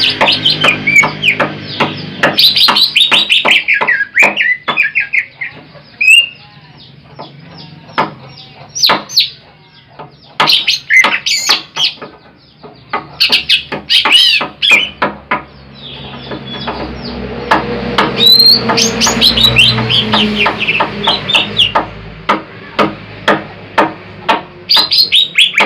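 Cucak ijo (green leafbird) singing: fast runs of varied chirps and sweeping whistled notes, broken by a few short pauses, over a low steady hum.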